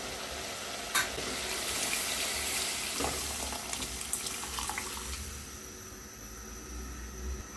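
Thick cooked dal poured from a bowl into a pot of cooked vegetables: a wet, splashing pour that is loudest over the first few seconds, with a sharp knock about a second in. A few light scrapes follow as the last of the dal is pushed out of the bowl, and the sound fades near the end.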